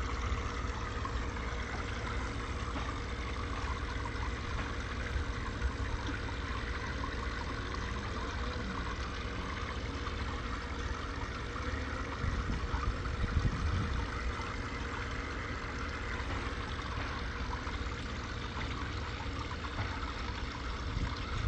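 Water trickling and splashing steadily into an aquarium, with bubbles streaming through the water and a low steady rumble underneath.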